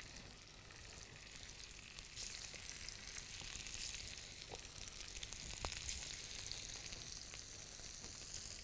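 Boiled potato rounds sizzling steadily in hot oil in a non-stick frying pan, a little louder from about two seconds in.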